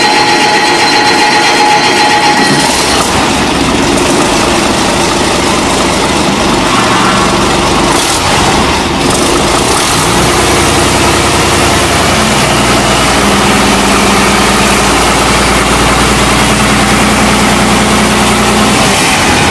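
Large turbocharged diesel engine running loud. A steady high whine in the first few seconds stops, and the engine's heavy running takes over, settling into an even idle in the second half.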